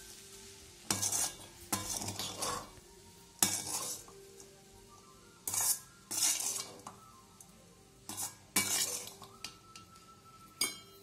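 Metal spatula scraping and clanking against a steel kadai as fried rice is stirred and tossed. The strokes are irregular, about one every second or two, with short pauses between them.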